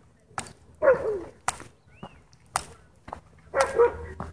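A dog barking in short bursts: one bark about a second in and two close together near the end, with a few sharp clicks between them.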